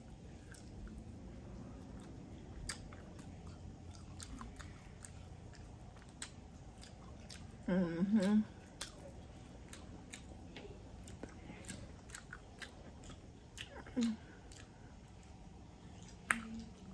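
A person chewing and biting barbecue pork ribs up close, with many small wet mouth clicks throughout. Brief voice sounds come about eight seconds in and again near fourteen seconds.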